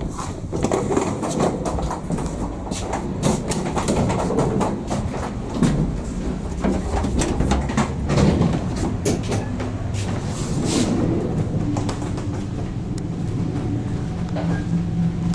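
ER2T electric train running, with many sharp clacks of the wheels over the rail joints over a low rumble. A steady hum comes in about twelve seconds in.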